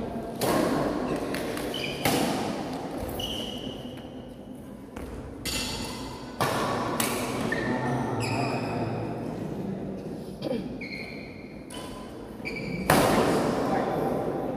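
Badminton rackets striking a shuttlecock in a rally: about six sharp strikes a second or more apart, ringing on in a large hall. Sport shoes squeak briefly on the synthetic court between them.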